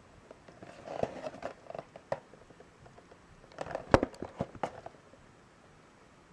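Small cardboard blind box handled in the hands: two bouts of rubbing and clicking on the card, about a second in and again near four seconds, with the sharpest click near four seconds.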